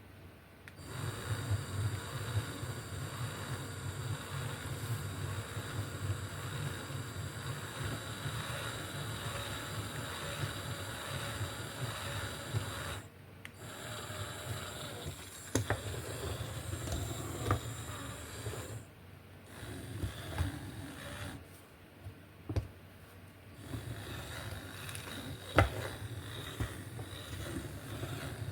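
Small DC gear motors of a kit-built remote control car running and driving its wheels, switched on and off several times by the remote, with a few sharp clicks.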